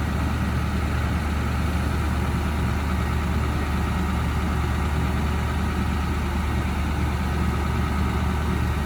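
A crane's engine running at a steady speed with a deep, even hum.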